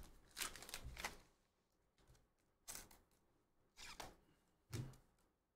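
Faint brushing swishes of baseball trading cards being slid one at a time off a stack, about five short brushes with near silence between them.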